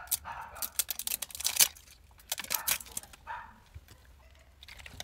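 Plastic shrink wrap crinkling and crackling as it is peeled off a perfume mist bottle, in two bursts of sharp crackles, the loudest about a second and a half in.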